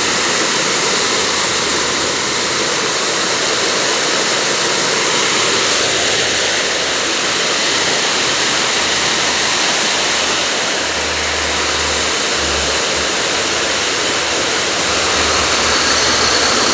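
Steady, loud rush of water from floodwater and heavy rain.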